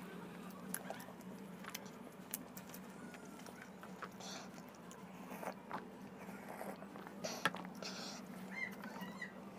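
Close-up mouth sounds of a person eating chicken biryani by hand: chewing and wet lip-smacking with scattered short clicks, one sharper click about three quarters of the way through. A steady low hum runs underneath.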